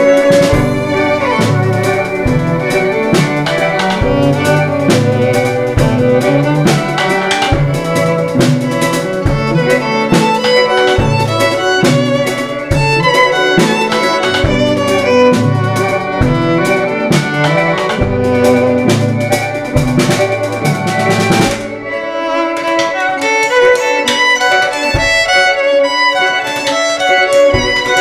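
Live violin, with several sustained layered parts, played together with a drum kit. About three-quarters of the way through the drums mostly drop out, leaving the violin carrying on nearly alone.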